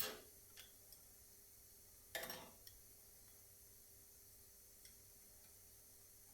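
Near silence broken by a few knocks: a sharp one at the very start that fades quickly, a short clattering knock about two seconds in, and a few faint ticks.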